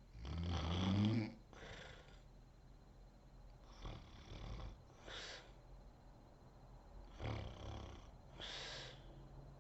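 A sleeping woman snoring: a loud snore on the in-breath, rising in pitch, in the first second or so, then breathy exhales, and a second, weaker snore about seven seconds in.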